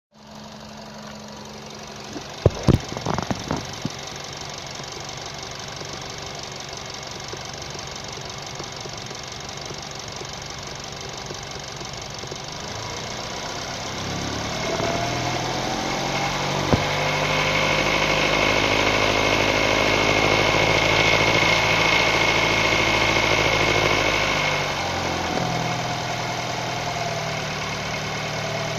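Nissan HR16 four-cylinder engine idling, then revved up and held for several seconds with a high steady whine on top before dropping back to idle. It is carrying a timing chain noise that persists even after the chain, tensioner, rails and sprocket were replaced. A few sharp clicks sound a couple of seconds in.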